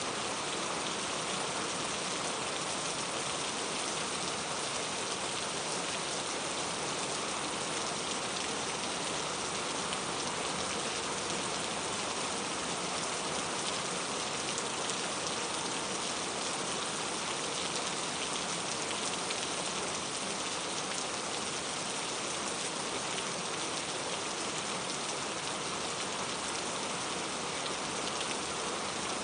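Steady rain falling on a surface, a continuous even patter of drops with no thunder or other events.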